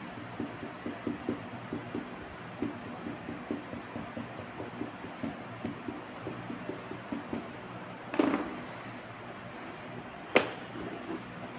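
Painting tools being handled on a work table: soft, light tapping two to three times a second, then a brief louder scrape about eight seconds in as a paintbrush goes into a paper cup, and a single sharp knock a little after ten seconds.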